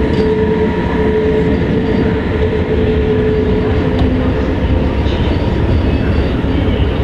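SBB Re 460 electric locomotive running with a train of passenger coaches: a loud, steady rumble of the train with a whining tone from the locomotive's drive over it.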